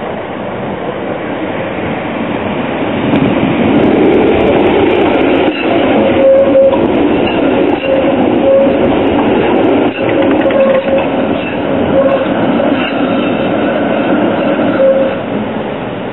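Brussels PCC-type articulated tram passing close by, rumbling along the rails. The sound swells about three seconds in and falls away near the end, with a few sharp clicks and a thin whine or squeal that comes and goes while it is loudest.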